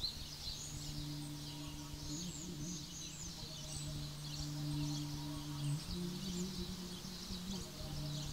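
Woodland songbirds chirping and singing throughout, over a steady low hum with a higher overtone that begins at the start and wavers in pitch twice.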